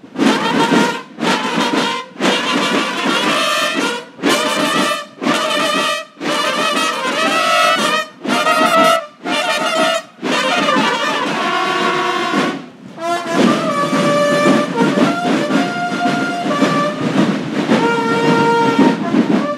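Brass band playing: short, separate phrases with brief breaks between them, then longer held chords from about two-thirds of the way in.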